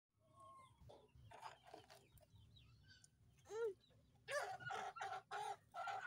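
Domestic hen clucking in the nest box: a few faint scattered calls, then a run of louder, evenly spaced clucks about two a second over the last two seconds.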